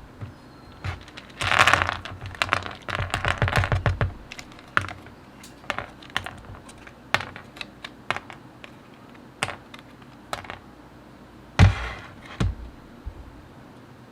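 Plastic mechanical keyboard switches (Gateron Milky Yellows) clicking and clacking as they are handled. A dense flurry of clicks comes about a second in, then a quick run of clacks, then scattered single clicks, with one heavier knock near the end.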